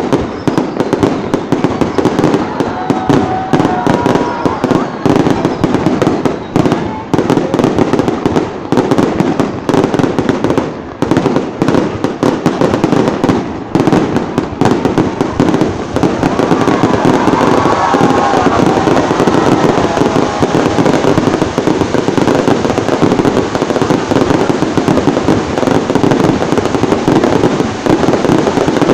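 Fireworks display: a loud, dense, continuous barrage of bangs and crackling, shells bursting with hardly a gap between them.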